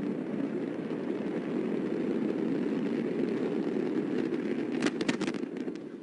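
Antares rocket launch noise: a steady, deep rumble, broken about five seconds in by a quick burst of sharp cracks.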